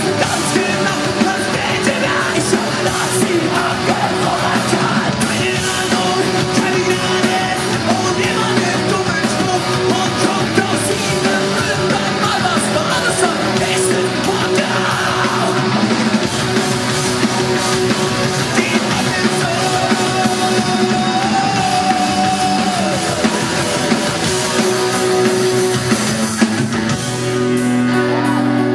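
A punk rock band playing live: distorted electric guitars, bass guitar and drums, with a male singer shouting and singing into the microphone. Near the end the band moves into held, ringing chords.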